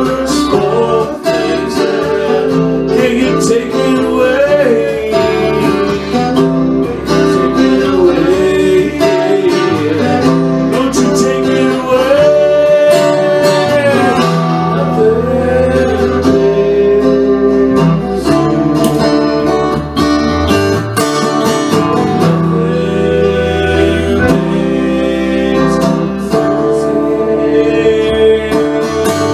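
Country-style music led by acoustic guitar, with a melody line wandering over a busy strummed and plucked accompaniment.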